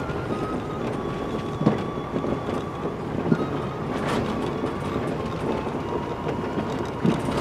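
Cabin noise of a vehicle driving slowly over a rough dirt track: steady engine and road noise, with the body knocking and rattling over bumps several times.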